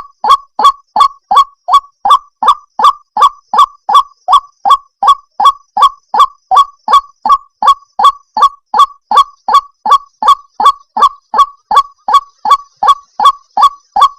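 White-breasted waterhen (ruak-ruak) calling: a long unbroken run of identical short notes, evenly spaced at about three a second.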